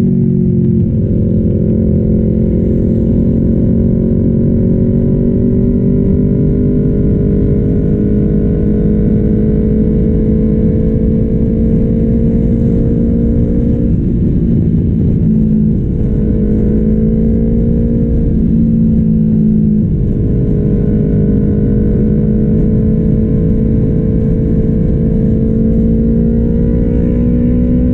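Sport motorcycle engine running at cruising speed, heard from a camera mounted on the bike, over a low rush of wind noise. The pitch creeps slowly upward, with brief dips around the middle as the throttle is eased or a gear changes.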